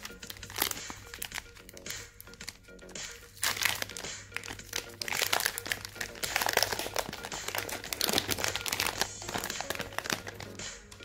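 Foil wrapper of a Milka Oreo chocolate bar crinkling as it is torn and peeled open by hand: dense crackly rustling that swells about three seconds in and eases off near the end, over background music.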